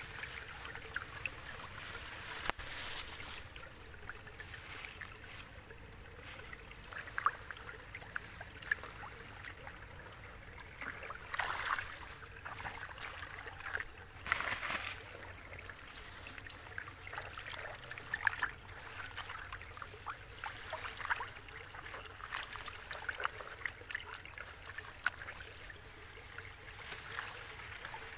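Water splashing and trickling irregularly, with several sharper splashes in the middle stretch.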